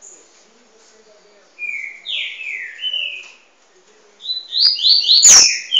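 Coleiro (double-collared seedeater) song: two runs of quick, sliding whistled notes, the first starting about one and a half seconds in and the second from about four seconds in to the end. A sharp click sounds near the end.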